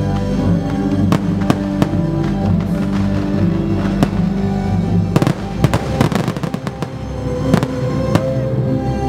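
Fireworks bursting with sharp bangs, with a run of rapid crackling about five to six and a half seconds in, over music held on long sustained tones.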